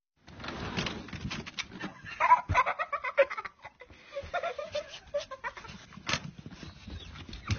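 A dog making short, wavering whining and yelping calls, about two seconds in and again around four to five seconds in, over rustling and knocking noises from snow and handling.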